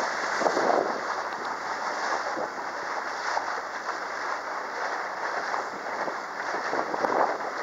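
Wind buffeting the microphone and water rushing and splashing past the hull of a small tour boat under way, in an uneven, gusty noise.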